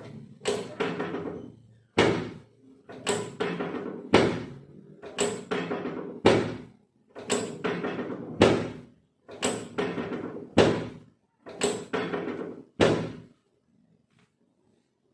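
A dozen thumps against a chiropractic treatment table, about one a second, each a sharp hit trailing off in a quick rattle of smaller knocks.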